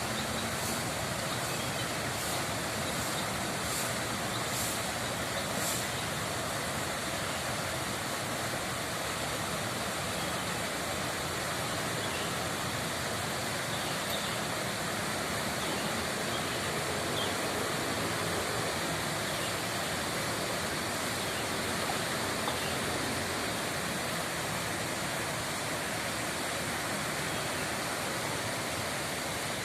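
Steady rush of flowing, rippling water, even in level throughout.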